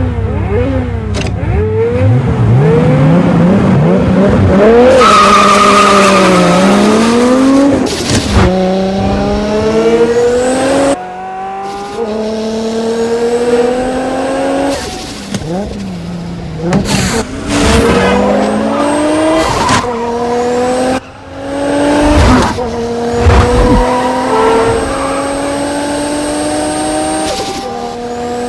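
Sports car engines revving hard and accelerating, the pitch climbing and dropping back again and again as they shift up through the gears, in a movie street-race sound mix with abrupt cuts between shots.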